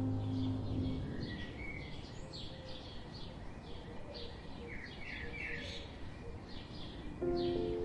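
Small birds chirping: a busy run of short, high, downward-sweeping chirps, several a second, over a low background hiss. Soft held music notes fade out about a second in and come back near the end.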